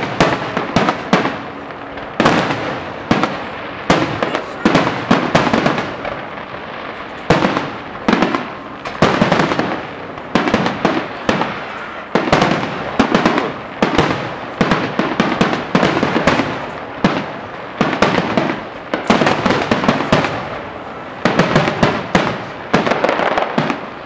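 Aerial fireworks shells bursting in quick succession: a steady stream of sharp, loud bangs, several a second at times, with runs of smaller pops between them.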